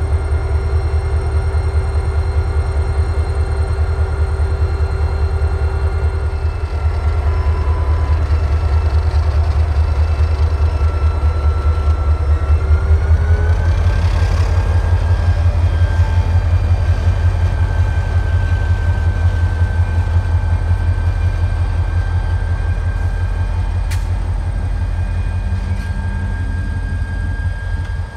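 Wisconsin and Southern diesel locomotives running close by, their engines making a deep, fast throb. About halfway through, a whine glides up in pitch and then holds as the engine sound grows louder.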